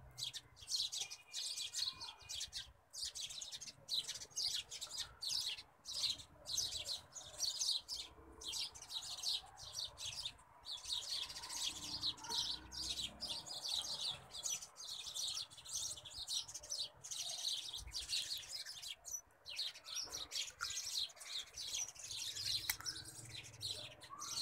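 Small birds chirping and tweeting in a rapid, continuous stream of high chirps.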